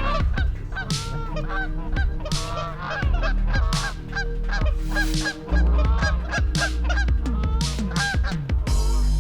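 Geese honking: many short, overlapping honks throughout, with a low rumble underneath at times.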